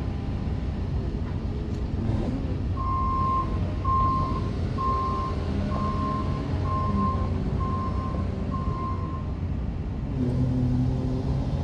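2015 Caterpillar 930M wheel loader's diesel engine running as the machine backs up, its reversing alarm beeping seven times, about once a second. Near the end the beeping stops and the engine takes on a deeper, steady tone.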